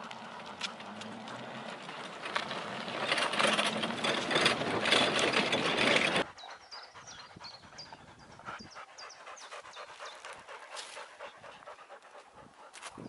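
A husky team pulling a four-wheeled dryland training cart: the cart's wheels roll and rattle over the ground with the dogs panting, growing louder until the sound stops abruptly about six seconds in. After that it is quieter, with panting and short high bird chirps.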